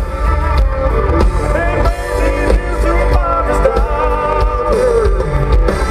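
Live country-rock band playing, with a man singing the lead over a steady drum beat and heavy bass.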